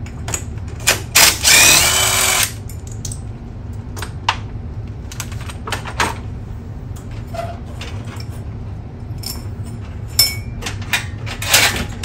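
Scattered metal clicks and knocks of hand work on a garage door cable drum and torsion shaft as the lift cable is freed, over a steady low hum. Just over a second in there is a louder noisy burst lasting about a second.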